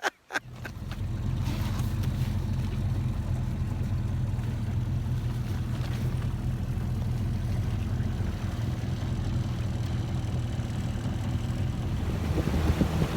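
A motorboat's engine running steadily underway, a low hum that builds up just after the start, with wind and water rush growing louder near the end.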